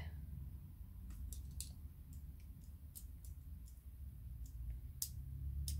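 Faint, scattered light clicks and crackles from paper items and packaging being handled, over a low steady hum.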